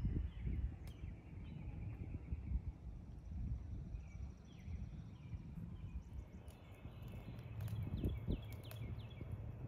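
Birds chirping over a low, uneven rumble, the short chirps coming quickly one after another near the end.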